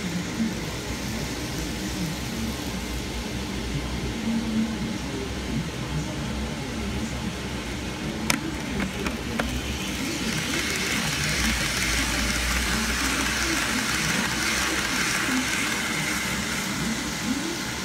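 Model Shinkansen E2 train running along its track, a steady mechanical running noise that grows louder about ten seconds in as the train comes round again. A single sharp click near the middle.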